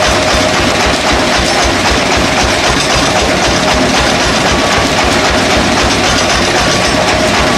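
Sawmill machinery running with a loud, steady din and a rapid low pulsing.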